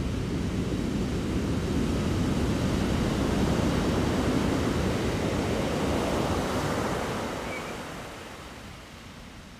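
Ocean waves washing in as a steady surf noise that swells slightly, then fades out over the last couple of seconds.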